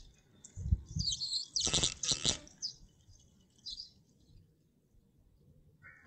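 Birds chirping in a run of short, high calls over the first four seconds, the loudest about two seconds in, with a low thump near the start.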